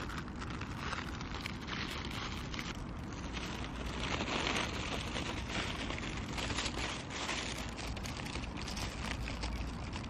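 Wind blowing across the microphone: a steady rough rush with a low rumble and fine crackling, swelling briefly a few seconds in.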